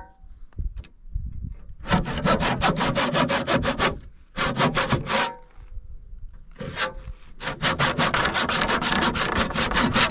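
Handsaw cutting through a wooden board in quick back-and-forth strokes, in several runs with short pauses, finishing a cut that a circular saw's round blade could not carry all the way through.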